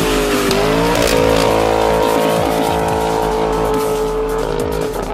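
A Corvette's V8 engine held at high revs through a burnout, with the tyres squealing. The engine note climbs about a second in, holds steady, then drops off near the end.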